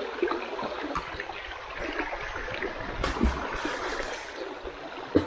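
Water splashing and gurgling, a busy crackling wash of small splashes, with one sharp knock near the end.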